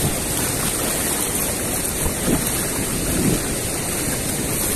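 Swift, shallow river water rushing steadily over stones, with a couple of soft splashes from feet wading through it about two and three seconds in.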